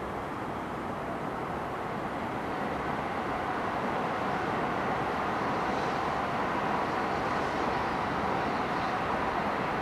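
A Shinkansen train running past on elevated track, its steady rumble and hiss swelling gently as it draws level, over the general noise of the city.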